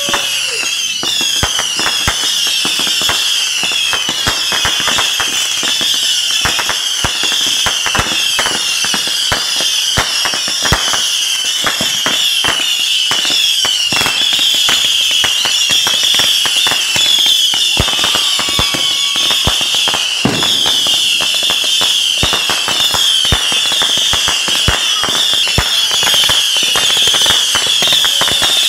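Consumer fireworks firing a long, unbroken barrage of whistling shots: many overlapping whistles, each falling slightly in pitch, several a second, over rapid pops and crackles.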